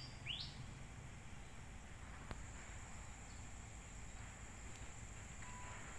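Outdoor ambience: a short rising bird chirp right at the start, over a steady high insect drone that grows a little louder about two seconds in, with a low rumble underneath.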